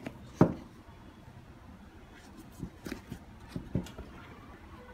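Air Jordan 1 High sneakers handled and knocked against a wooden table: one sharp knock about half a second in, then a few lighter knocks and some rubbing.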